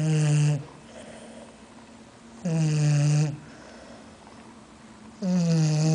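English bulldog snoring in its sleep: three loud snores about two and a half seconds apart, each under a second long, with a tone that drops slightly in pitch over the course of each snore.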